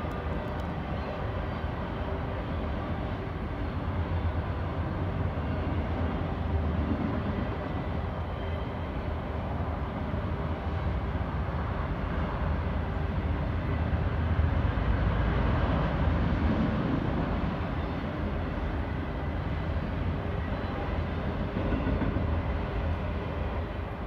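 Autorack freight cars rolling past at a grade crossing: a steady rumble of steel wheels on rail, heaviest in the low end, with no let-up.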